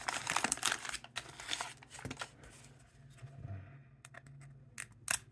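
A pack of 1990 Topps baseball cards being torn open, its wrapper crinkling most densely in the first second or so and thinning to scattered small rustles. A few sharp clicks come near the end.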